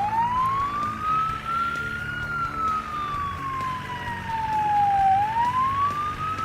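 Fire truck siren wailing: its pitch rises slowly, falls over about three seconds, then rises again. Soft background music plays underneath.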